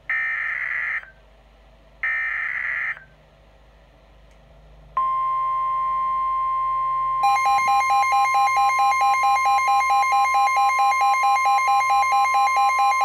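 NOAA Weather Radio alert for a new tornado warning, heard off a Midland WR-120 weather radio. First come two short bursts of the SAME digital header, about a second each. A steady 1050 Hz warning tone starts about five seconds in, and a couple of seconds later the radio's own rapid pulsing alarm beep joins it, about four beeps a second.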